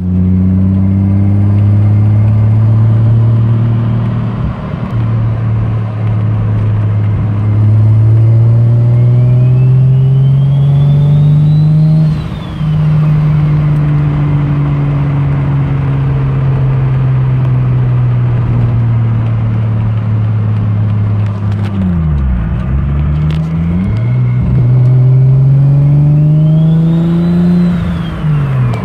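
Car engine heard from inside the cabin, pulling through the gears. The revs climb slowly and drop at an upshift about halfway through, dip and come back a few seconds later, then climb again to another shift near the end. A high whine rises and falls with the revs.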